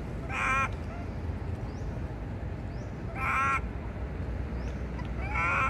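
A young long-tailed macaque crying: three short, shrill, wavering cries about two and a half seconds apart.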